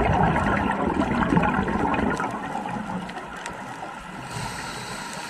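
Underwater bubbling and gurgling from a scuba diver's exhaled breath through the regulator, loudest for the first few seconds, then easing off, with a thin hiss joining near the end.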